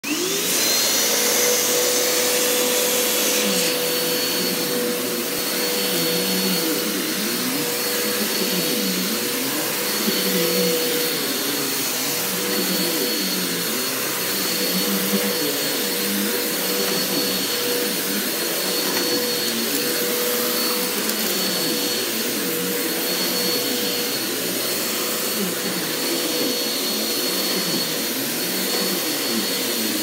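Bissell CleanView OnePass upright vacuum switched on, its motor rising in pitch to full speed within the first second, then running steadily with a high whine. It is pushed back and forth over carpet, which makes the lower hum shift and vary.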